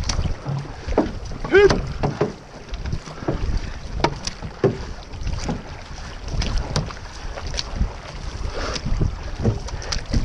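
Outrigger canoe (OC6) being paddled: repeated splashes of paddle blades stroking the water, over steady wind rumble on the microphone.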